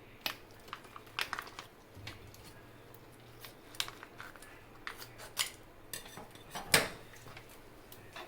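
Light clinks and taps of a spoon against kitchen containers: scattered short clicks, the loudest about two-thirds of the way through.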